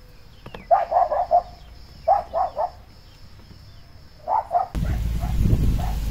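A dog barking in quick runs of three or four barks. About three-quarters of the way in, a steady low rushing noise comes up suddenly and the barks carry on more faintly.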